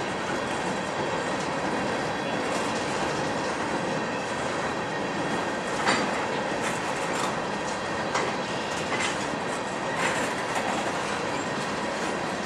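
Freight train tank cars rolling past, their steel wheels running on the rails in a steady rumble. Sharp clacks come now and then, the loudest about six seconds in and more around eight and ten seconds in.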